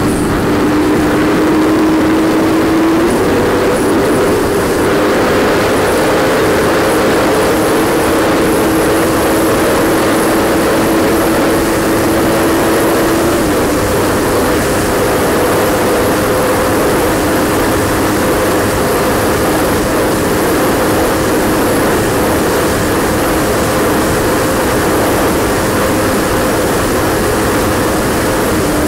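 Yamaha R1 sportbike's inline-four engine running at high revs under hard acceleration toward top speed, about 225 to 300 km/h, with heavy wind rush on the microphone. The engine note is steady and shifts pitch about three seconds in and again near the middle.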